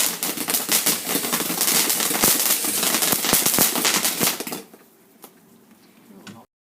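A firework going off in a rapid crackling stream of sharp bangs, which stops abruptly about four and a half seconds in and leaves a few faint pops.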